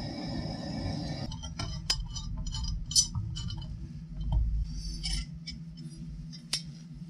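Portable gas torch on a canister hissing steadily, shut off about a second in. Then scattered light metal clinks and clicks as a steel angle-grinder guard and a steel rod are handled.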